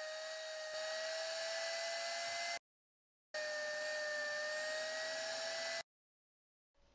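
Piranha II diamond-wheel tungsten grinder running with a steady high whine and hiss as a 3/32" 2% lanthanated tungsten electrode is ground to a point. The whine rises slightly in pitch. It is heard in two stretches of about two and a half seconds each, each cut off abruptly into silence.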